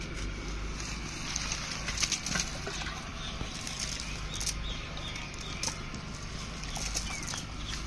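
Small live fish flapping and splashing in water in an aluminium pot, with irregular short slaps and splashes, over a rustle of dry leaves and cast net.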